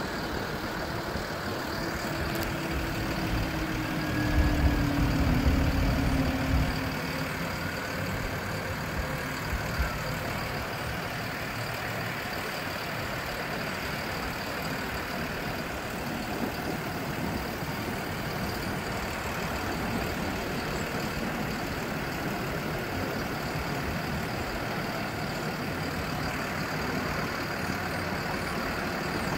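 The 2012 Ford F-750's Cummins 6.7-litre diesel running steadily at idle. About four seconds in there is a louder swell lasting a couple of seconds, with a tone that drops in pitch.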